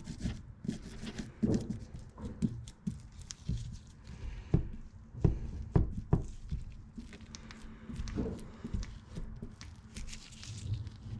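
Irregular knocks, taps and rubbing from hands and tools working a wet forged-carbon-fibre layup flat, with the loudest knocks about halfway through.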